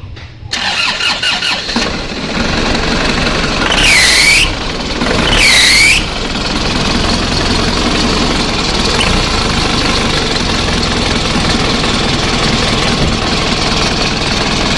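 Isuzu Panther diesel engine starting about half a second in and settling into a steady idle. A few seconds in come two short high squeals, about a second and a half apart, which are the squeal the owner complained of from the alternator and fan V-belt; it squeals more easily when the lights are on.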